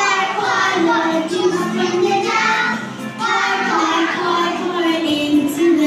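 A children's song: young voices singing over music.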